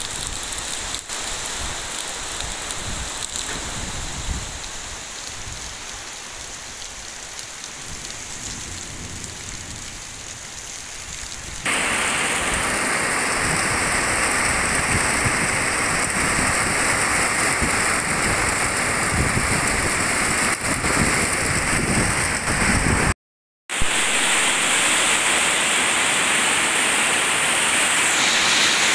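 Heavy rain falling, a steady hiss of water. About a third of the way in it jumps abruptly louder and brighter, and near the end it drops out completely for about half a second.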